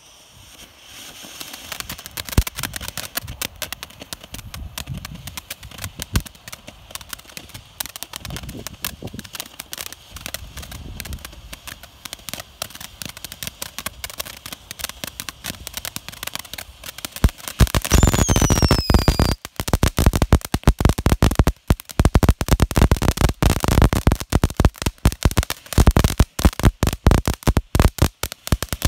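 Dominator 'Breathless' ground fountain firework spraying sparks with a steady hiss and scattered crackles. About two-thirds of the way through it turns to loud, dense crackling and popping, with a brief falling whistle.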